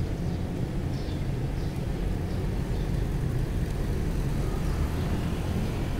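Steady low rumble of road traffic on the bridge overhead, with faint short high chirps now and then.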